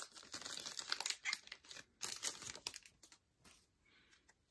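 Wrapper of a baseball card pack crinkling as it is torn open and handled. It dies down after about three seconds to a few faint clicks.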